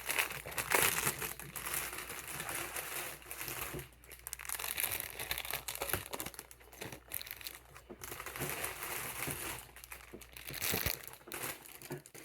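Plastic packaging crinkling and rustling as it is handled and opened, in irregular bursts.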